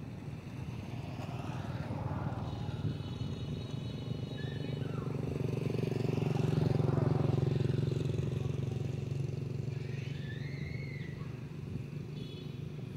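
A motor engine droning steadily, growing louder towards the middle and then fading as it passes. A few short high chirps come over it, the clearest about ten seconds in.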